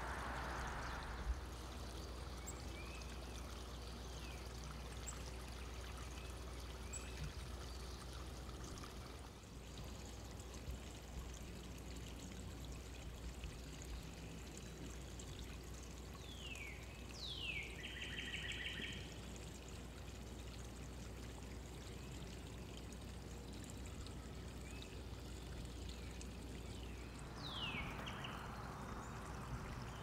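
Faint calls of small backyard birds over a steady hiss and low hum: a few short chirps, then two quick downward-sweeping calls just past the middle followed by a short buzzy trill, and another downward call near the end.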